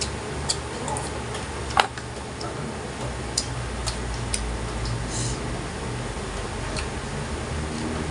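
Eating at the table: scattered light clicks and taps of a spoon and fingers against a metal bowl, the sharpest click about two seconds in, over a low steady hum.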